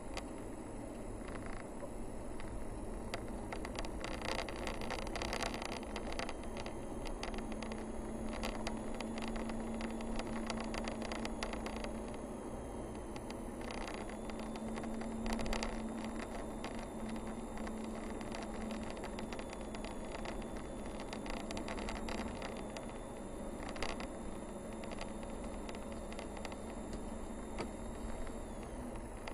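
A car driving slowly along a narrow paved road, heard from inside the cabin: steady engine and tyre noise with scattered small clicks and rattles.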